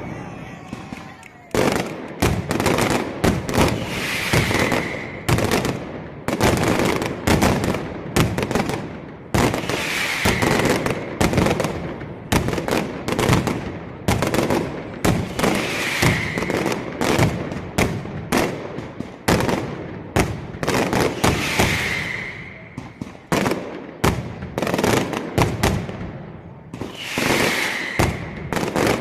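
Mascletà firecrackers going off in a dense, unbroken barrage of sharp bangs, with a short lull about a second in.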